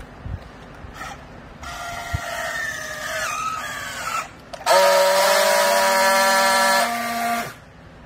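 Battery-powered handheld plastic-strap strapping tool working on a bale strap. Its tensioning motor whines and drops steadily in pitch as the strap tightens. Then comes a louder, steady high buzz for about three seconds as the tool friction-welds the strap joint, and it cuts off suddenly.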